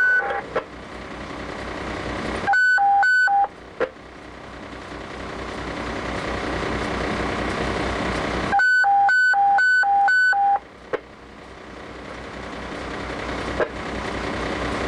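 Two-way fire radio sounding hi-lo alert tones, alternating high and low beeps: a short burst about two and a half seconds in and a longer two-second run near nine seconds, each set off by a short squelch click. Underneath, a fire apparatus engine runs steadily.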